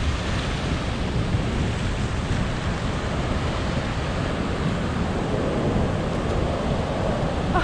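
Ocean surf breaking and washing up the beach, a steady hiss and wash, mixed with wind noise on the microphone.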